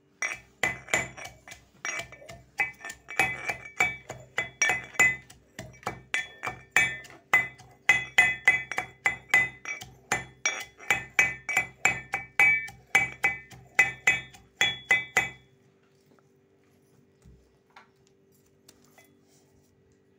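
Steel pestle pounding garlic in a steel mortar (imamdasta): a steady run of strikes, roughly three a second, each with a short metallic ring, stopping about fifteen seconds in.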